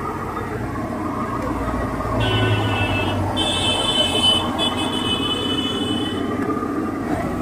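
Street traffic running past, with a vehicle rumbling by about two seconds in. A thin whining tone with several pitches holds over the middle few seconds.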